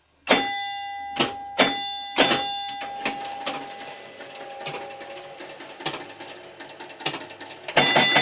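1966 Williams A-Go-Go electromechanical pinball machine in play: sharp mechanical clacks of flippers, bumpers and relays, with a scoring chime ringing out and fading after a strike near the start, again soon after, and once more near the end.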